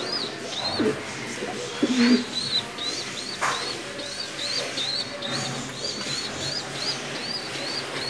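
Domestic pigeons cooing in a loft, over a steady run of short, high chirping calls repeating about three times a second.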